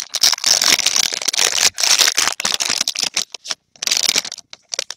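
Trading cards shuffling and a foil card-pack wrapper crinkling as cards are pulled from it, close to the microphone: a dense run of crackles and clicks that breaks into shorter bursts in the last second or so.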